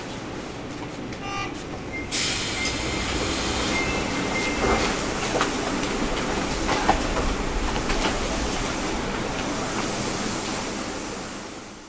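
Sendai Subway 1000N series train standing at the terminal with its doors opening. A short chime-like tone about a second in is followed by a sudden rush of hiss as the doors open, a thin high buzzer tone for a couple of seconds, then steady car noise with the air conditioning running and scattered knocks, fading out at the end.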